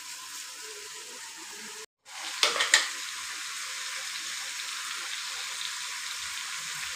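Onion-tomato masala sizzling steadily in an aluminium kadai, with a spatula scraping and knocking against the pan a few times just after the sound drops out briefly about two seconds in.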